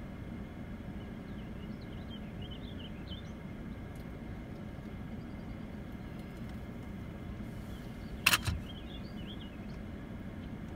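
Steady low outdoor rumble with small birds chirping a few times, and a sharp double knock a little past eight seconds in, the loudest sound.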